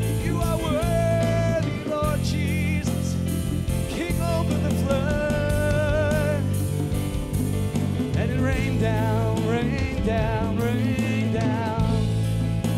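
Live worship band playing a slow song: keyboard chords and bass with an electronic drum kit, and a man singing a held, wavering melody line over it.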